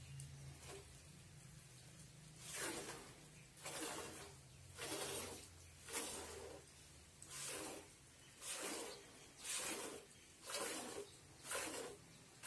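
Buffalo being milked by hand: squirts of milk hissing into a pail in a steady rhythm of about one a second, beginning about two seconds in.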